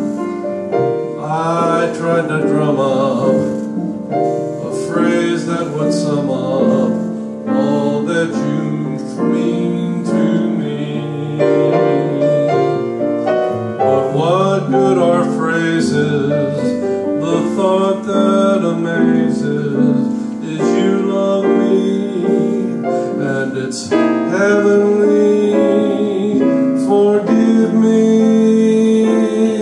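A man singing into a microphone with grand piano accompaniment, his held notes wavering with vibrato.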